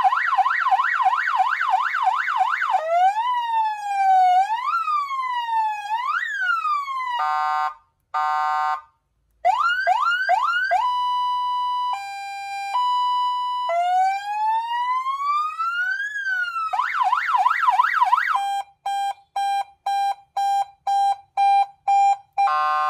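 A 12V 100W seven-tone electronic siren horn is sounding loudly and being switched through its tones from a remote. It goes from a fast yelp to a slow rising and falling wail, then a steady blast, quick rising sweeps, a two-tone hi-lo, and another fast yelp. Near the end it gives short beeps about twice a second.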